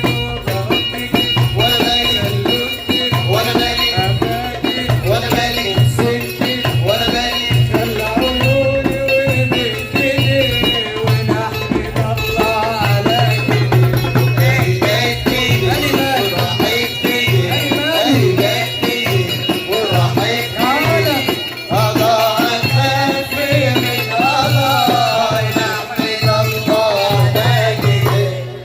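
Port Said simsimiyya folk music played live: the plucked simsimiyya lyre and hand percussion with a rattling beat keep a steady rhythm under a man singing the melody.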